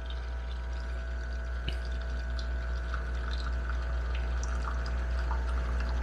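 De'Longhi La Specialista espresso machine's vibratory pump humming steadily while it extracts a shot, with espresso trickling into the cup.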